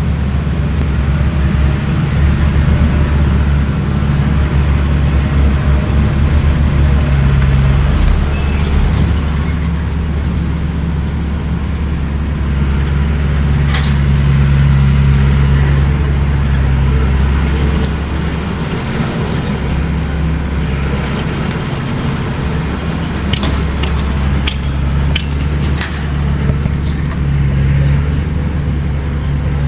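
Bulldozer's diesel engine running steadily under load, its low note swelling and easing a little, with a few sharp metallic clanks.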